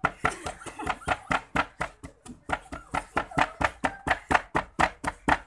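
Wooden pestle pounding red bird's-eye chilies (siling labuyo) and salt in a wooden mortar: a steady run of knocks, about four a second, with a short pause about two seconds in.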